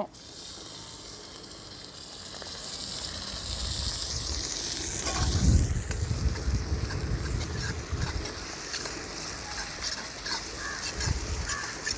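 Chopped garlic sizzling in hot oil with curry leaves in an iron kadai, then a steel ladle stirring and scraping the pan in small clicks. A low rumble comes about five seconds in.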